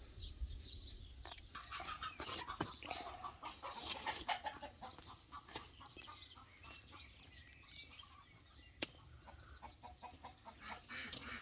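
Chickens clucking faintly in scattered short calls that thin out after about five seconds, with one sharp click near the end.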